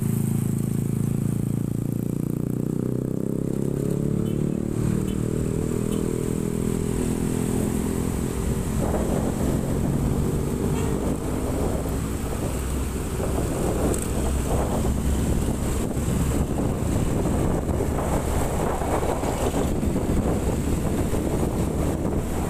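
Motorcycle engine running steadily while riding in traffic. About nine seconds in, the hum gives way to wind rushing and buffeting over the microphone as the ride continues.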